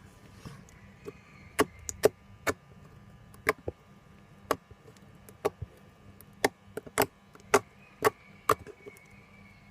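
Soft glitter slime being squeezed and folded by hand, giving a string of sharp, irregular clicks and pops, about two a second.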